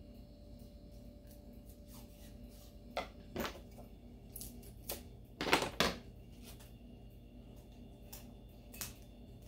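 Tape being pulled off a roll and pressed onto a wrapped dog bowl: a few short rasps of tape peeling around the middle, the loudest two close together, among light handling clicks and rustles, over a faint steady hum.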